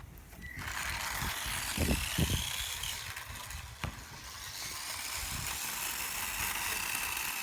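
Micro RC car's small electric motor and gears whining as it drives at speed, the whine rising in pitch over the first couple of seconds and later holding steady, with a couple of low thumps about two seconds in.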